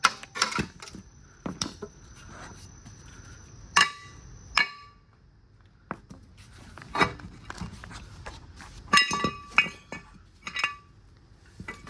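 Sharp metal clinks and knocks, several with a brief metallic ring, as a brake rotor and caliper are worked off a car's rear hub.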